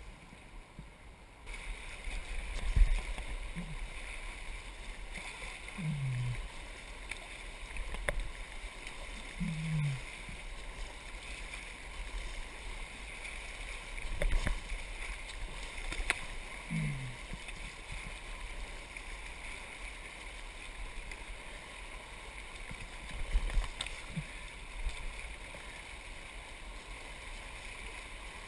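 Steady rush of whitewater as a kayak runs a riverside riffle, with a few low thumps along the way.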